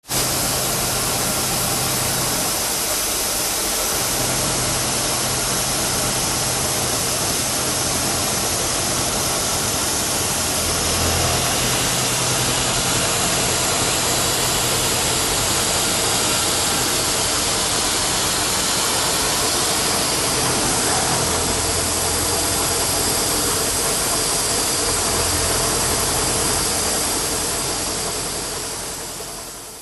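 Milling machine rough-machining a metal mould plate: a loud, steady hiss of spindle and cutting noise with a low hum underneath that shifts in pitch now and then. It fades out near the end.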